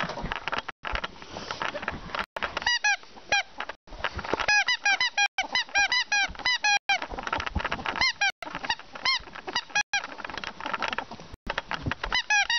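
Ferret dooking: runs of short, quick chirping clucks, several a second, the excited chuckling a ferret makes in play. Scuffles and knocks are mixed in.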